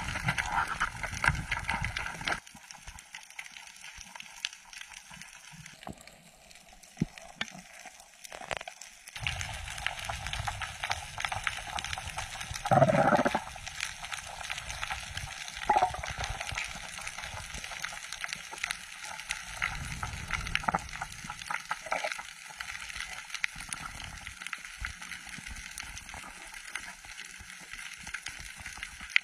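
Underwater sound picked up by a camera beside a diving spearfisher: a constant fine crackle of tiny clicks over low water noise, with gurgling swooshes of water movement now and then, the loudest about 13 seconds in.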